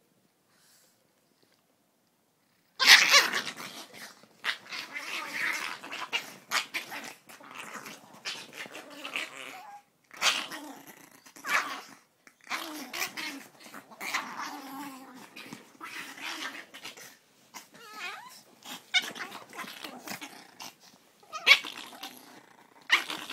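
Two Chihuahuas play-fighting, growling and snarling in irregular bursts as they mouth at each other. The first three seconds are silent, and the loudest burst comes just after.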